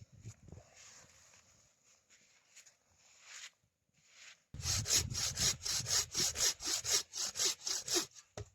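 Hand saw cutting through wood with quick, even back-and-forth strokes, about four a second. It starts a little past halfway after some quieter rustling and stops just before the end.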